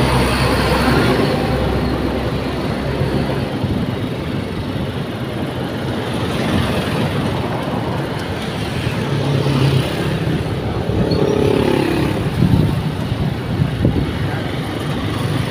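Road traffic passing close by: cars, trucks and motorcycles running over a steady road noise, with a few louder swells as vehicles go past.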